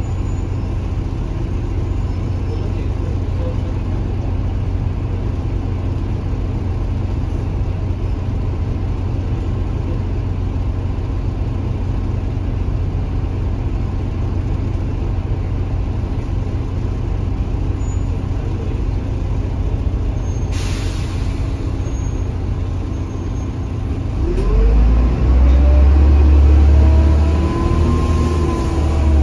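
Mercedes-Benz OM926 inline-six diesel of an OH1830LE bus, heard inside the passenger cabin, running steadily under way. About three-quarters of the way in there is a hiss of air lasting a few seconds, then the engine gets much louder with its pitch rising and bending as it accelerates.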